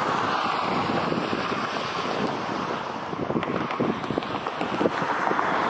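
Wind buffeting the microphone: an uneven, gusty rush with low fluttering thumps.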